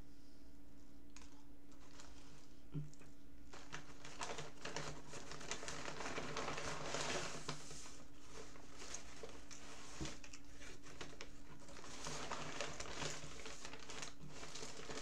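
Paper crinkling and rustling as it is handled, in two spells, the first about three seconds in and the second near the end, over a steady low hum.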